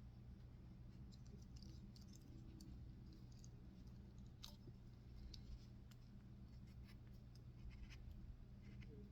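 Very faint, scattered small clicks and scratches of a thin metal shim being worked into a lock cylinder, over a steady low hum.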